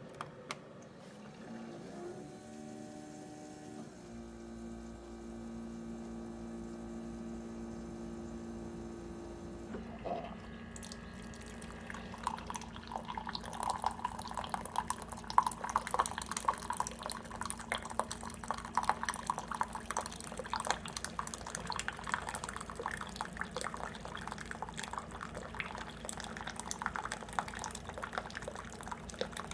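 Keurig K155 coffee maker brewing. First there is a steady machine hum with a few held tones. From about ten seconds in, coffee streams and spatters into the cup over a continuing low hum.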